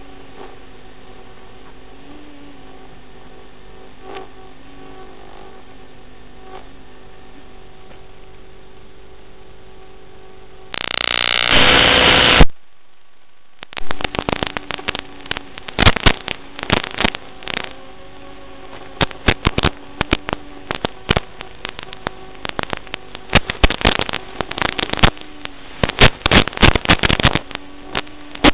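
Radio static on the audio channel of an analog FPV video link. A steady hiss and hum runs for about eleven seconds, then a loud burst of white-noise static lasts about a second and a half as the signal is lost. After a moment of quiet, irregular crackling and popping runs on while the link keeps breaking up.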